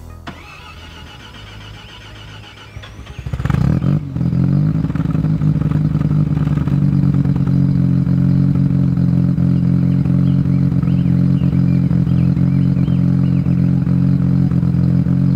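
Mazda FD RX-7's street-ported 13B twin-rotor rotary engine cranking and catching about three and a half seconds in, flaring briefly, then settling into a steady idle through a freshly fitted RE Amemiya cat-back exhaust.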